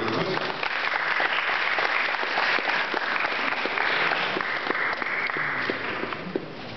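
An audience applauding: many people clapping steadily, dying down near the end.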